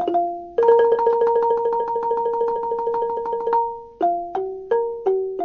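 Instrumental intro music of struck, pitched notes: a quickly repeated chord held for about three seconds, then single notes stepping through a short phrase.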